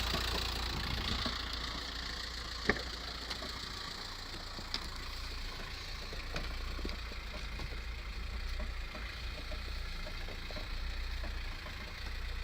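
VW T5 1.9 TDI four-cylinder diesel idling from cold with an irregular knocking rattle, which the owner hears only on a cold start and which fades after about seven minutes. One sharp click stands out about three seconds in.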